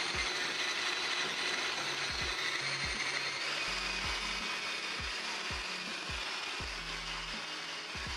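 Hand-held stick blender running steadily, its motor whirring as it beats eggs and sugar in a bowl.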